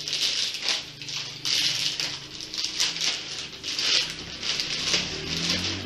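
Thin plastic bag rustling and crinkling in repeated bursts as a ball of dough is pushed into it and the bag is handled.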